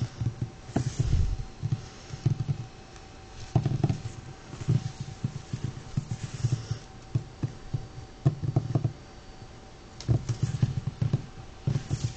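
A puppy's paws pattering and tapping on a hardwood floor in short runs of quick, soft knocks, with brief pauses between them.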